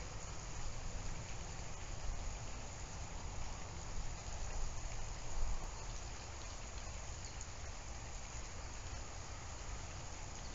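Steady outdoor background noise: an even hiss with a low rumble and no distinct event.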